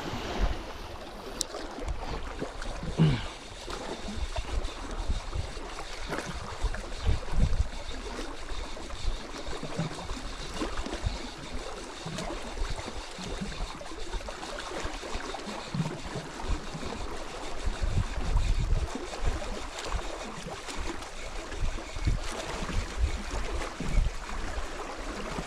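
Small sea waves lapping and sloshing against a rocky shoreline, with wind buffeting the microphone in irregular low gusts.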